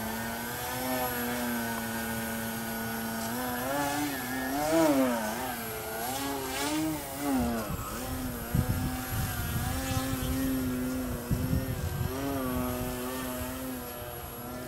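Electric motor and propeller of a small foam RC Yak 55 aerobatic plane in flight, a steady whine whose pitch keeps rising and falling as the throttle and the plane's path change. Bursts of low rumble come and go in the second half.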